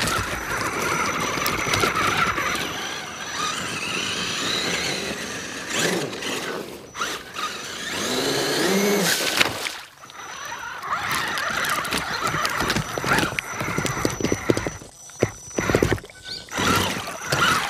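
Radio-controlled truck's motor whining as it drives through shallow water, the pitch rising and falling as it revs, with water splashing from the tyres.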